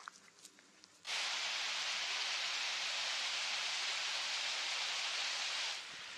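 Small mountain stream cascading over rocks, a steady close rushing of water that starts suddenly about a second in and drops to a quieter rushing near the end, after a second of faint ticking.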